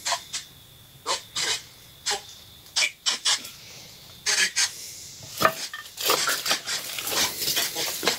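Footsteps scraping and scuffing on gritty concrete steps scattered with dry leaves. At first the scuffs come about once a second, then from about six seconds in they run together into near-continuous scraping and rustling.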